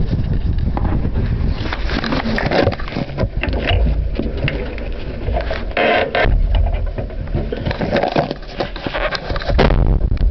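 Amphibious assault vehicle's diesel engine running, heard from inside the hull as a steady low rumble with rattles and scrapes. Near the end a loud blast breaks in as the mine-clearing line charge detonates.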